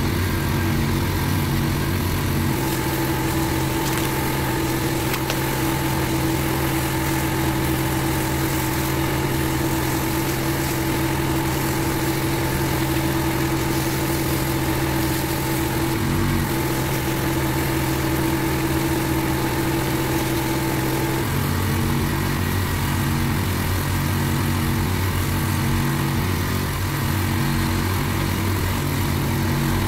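Van-mounted pressure washer's engine running steadily. It picks up to a higher, busier pitch about two and a half seconds in as the surface cleaner is put to work, and drops back to its lower note about 21 seconds in when spraying stops.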